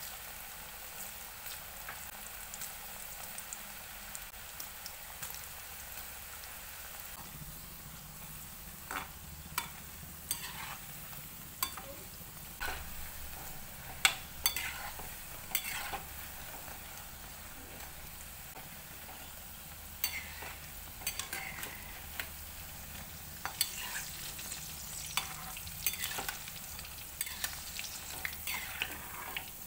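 Battered cauliflower fritters deep-frying in hot oil in a metal wok, a steady sizzle. From about nine seconds in, scattered sharp clicks and scrapes come from a metal spoon stirring the fritters against the pan.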